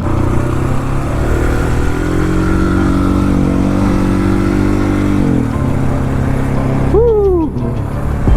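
Husqvarna 701 Supermoto's single-cylinder engine running at cruising speed under the rider, its pitch rising slightly and holding, then dropping about five seconds in as the throttle eases off.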